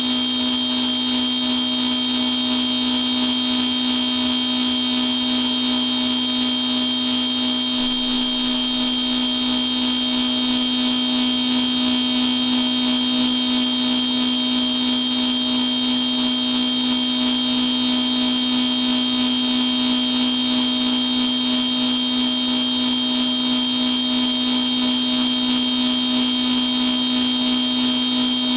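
Machine tool running steadily through a dry cycle, without coolant and without cutting: an unchanging low hum with a high whine on top.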